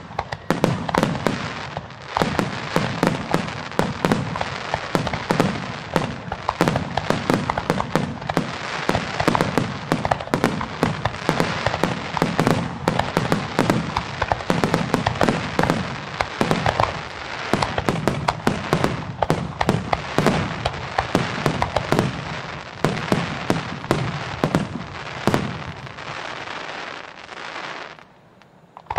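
Fireworks barrage: aerial shells and ground-fired effects going off in rapid, overlapping succession, a dense continuous run of bangs that stops abruptly near the end.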